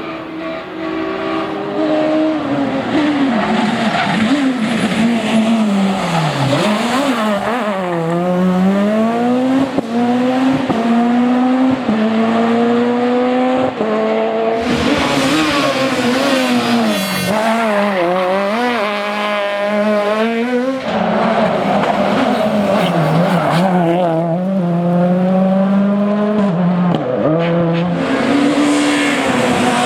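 Super 2000 rally car engines, naturally aspirated two-litre fours, revving hard: pitch climbs through the gears, drops off for corners and climbs again, over and over. A loud rushing noise cuts in for a couple of seconds about halfway through and again near the end.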